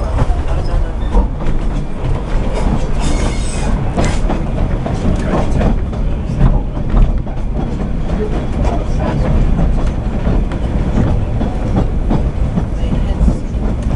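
Narrow-gauge railway carriage running along the track, heard from inside: a steady rumble of wheels on rail with clickety-clack from the rail joints and frequent small clicks and knocks.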